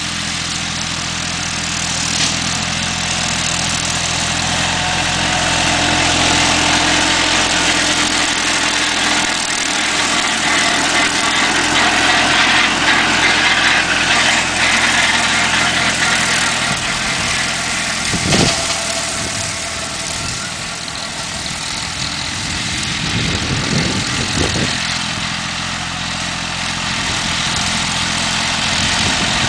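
Yanmar F16 compact tractor's diesel engine running steadily while it mows tall grass with a rear-mounted 115 cm mower. It grows louder as the tractor passes close about a third of the way in, and a single knock sounds about two-thirds of the way through.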